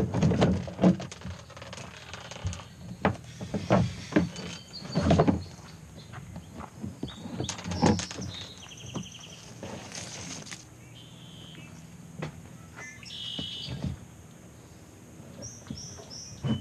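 A plastic kayak being handled, its hull bumping and knocking several times, mostly in the first half. Small birds chirp a few times in the quieter second half.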